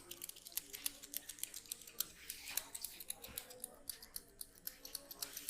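Barber's scissors snipping rapidly, a fast run of sharp metallic clicks, several a second.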